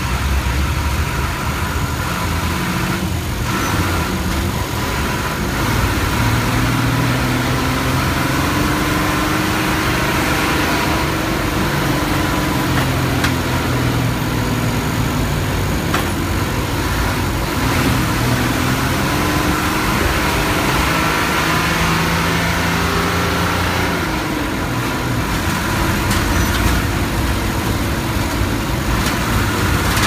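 Engine of a non-air-conditioned city bus heard from inside the cabin while the bus drives through traffic. The engine note rises and falls several times as the bus speeds up and slows, over a steady rush of road noise.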